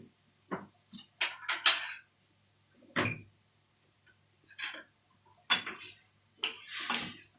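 Kitchen clatter of dishes and utensils: a string of short knocks and scrapes, with a low steady hum underneath.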